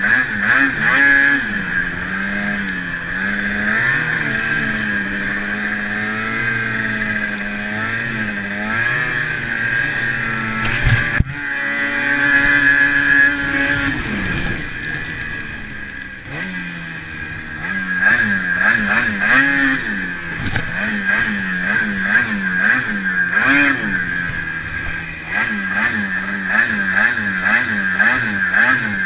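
Ski-Doo 600RS race snowmobile's two-stroke engine revving up and down as it is ridden through snow, the pitch rising and falling with the throttle and swinging faster near the end. A single sharp knock about eleven seconds in.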